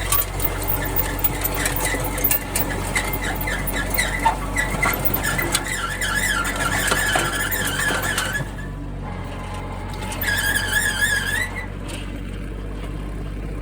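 Rotary tiller running with a steady engine hum beneath, and a wavering, high-pitched squeal from near the rotary's rotating shaft that comes and goes, stopping about two-thirds through and returning briefly. The uploader asks whether a lack of oil or a bad bearing is to blame.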